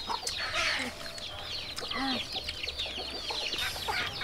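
Chickens clucking, with a dense run of short high chirping calls over them.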